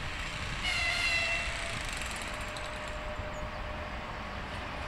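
Electric locomotive horn sounds one short, pitched blast about half a second in, lasting about a second, over the steady rumble of the approaching passenger train.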